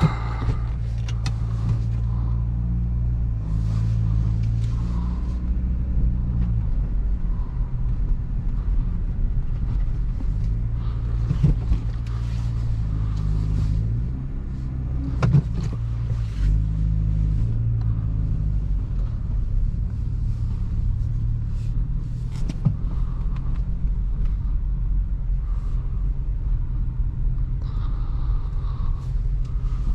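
2023 Acura Integra A-Spec's engine and tyres while driving: a steady low drone whose pitch steps up and down several times, with scattered short knocks and clicks.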